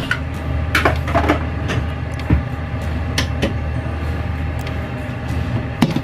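A steady low machine hum in a kitchen, with a few sharp knocks and clacks as a cabinet is reached into and a plastic oil container is taken down and handled.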